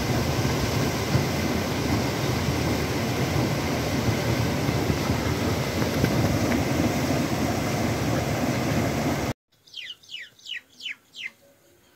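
Steady rushing of a mountain stream, which cuts off suddenly about nine seconds in. Then a bird calls a quick series of about six high notes, each sweeping downward.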